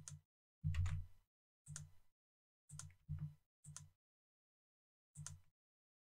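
Computer keyboard and mouse clicks: about seven short bursts of clicking with silence between them.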